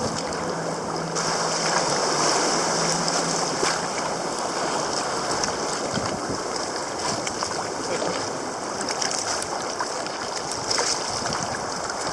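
Sea water sloshing and splashing around a sea kayak's hull in choppy water, with waves breaking white against rocks; a steady rushing noise without pauses.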